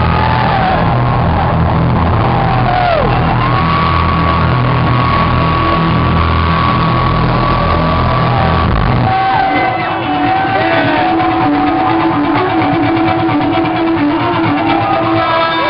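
Loud dance music from a club DJ set, with heavy bass and sliding synth lines. About nine seconds in, the bass drops out and a guitar-driven rock track takes over.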